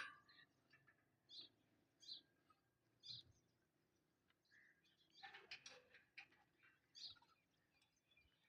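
Near silence broken by faint, scattered short bird chirps, about half a dozen in all, with a small cluster about five seconds in.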